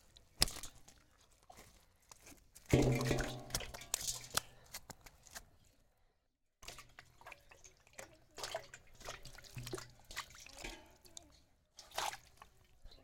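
Water splashing and dripping in short irregular spurts, with scattered sharp knocks, as a fishing net and catch are worked in water. A louder low-pitched sound lasts about a second, starting about three seconds in, and the sound breaks off completely for a moment a little before halfway.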